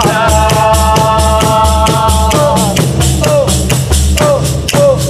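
Tammurriata: a tammorra frame drum beaten in a steady rhythm of about two strokes a second, its jingles rattling, with castanets clicking and a man singing. He holds one long note for the first two seconds or so, then sings short falling phrases.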